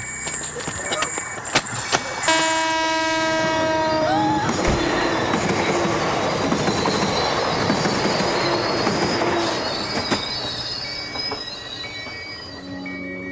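A train horn sounds one long blast about two seconds in, its pitch sagging as it ends, followed by a low thud. The train then rushes past loudly for several seconds before fading. A short beep repeats at an even pace at the start and again near the end.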